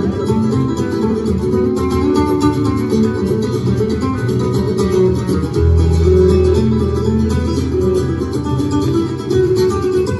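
Two acoustic guitars playing a flamenco-style duet live: quick runs of plucked notes over low bass notes, with one deep bass note ringing out a little past halfway.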